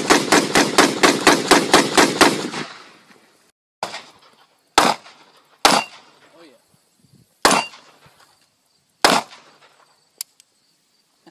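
AR-15 rifle firing: a rapid string of about a dozen shots at roughly five a second, then five single shots spaced one to two seconds apart.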